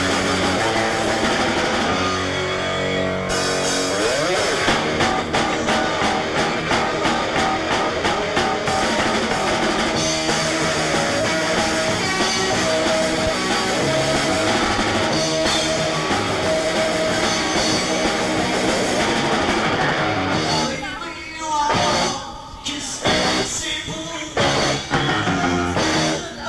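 Rock band playing live, with guitar, bass and drums. About three-quarters of the way through, the full sound breaks into short stop-start hits with gaps between them.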